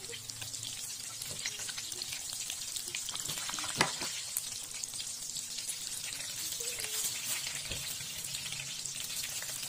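Spring rolls frying in a pan of bubbling oil, a steady crackling sizzle. Wooden chopsticks tap the pan as the rolls are turned, with one sharp knock about four seconds in.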